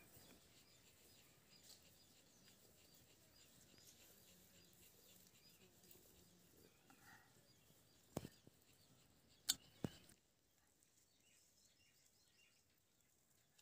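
Near silence: faint outdoor ambience with faint high chirping. Three sharp clicks come about eight, nine and a half and ten seconds in, and the background drops away abruptly just after the last one.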